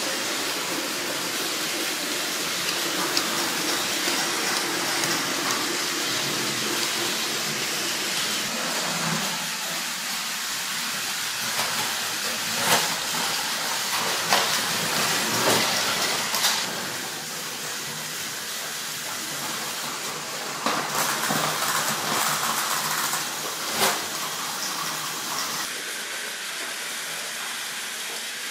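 Several Plarail battery-powered toy trains running at once on plastic track: a steady whirring hiss of small geared motors and plastic wheels, with occasional sharp clacks.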